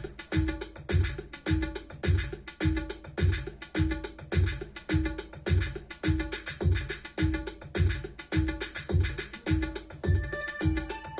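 Music with a steady, heavy bass beat of about two hits a second and tabla-like percussion, played back through an Obage HT-101 speaker system as a sound test.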